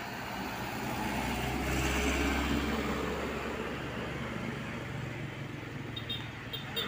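Road vehicles driving past close by, first a small truck and then a motorcycle. Their engine rumble and tyre noise swell to a peak about two seconds in and slowly fade.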